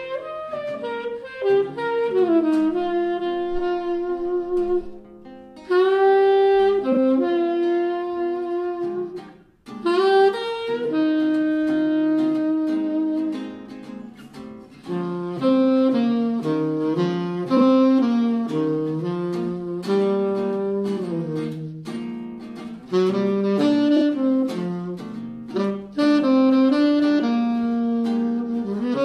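Saxophone playing a jazz melody in phrases over acoustic guitar chords, with brief pauses in the saxophone line about five and nine seconds in.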